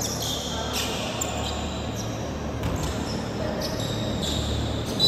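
Basketball bouncing on a hardwood gym court, with sneakers squeaking in short high-pitched chirps and faint voices.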